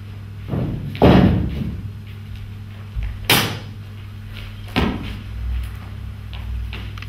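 A few loud bangs and thuds that ring briefly in a hall, the loudest about a second in, two more close together near the middle and one more later. A steady low electrical hum runs underneath.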